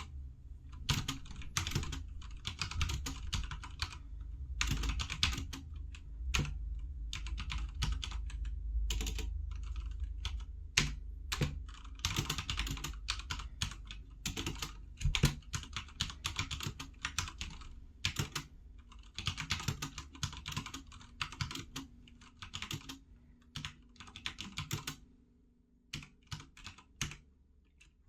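Typing on a HyperX Alloy FPS Pro TKL mechanical keyboard with linear Cherry MX Red switches: quick runs of keystrokes broken by short pauses, with a brief lull near the end.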